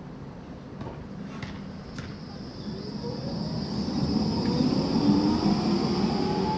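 Low-floor electric tram pulling away from a stop: a few clicks, then the traction motors' whine rising steadily in pitch over the rumble of the wheels on the rails as it accelerates and grows louder.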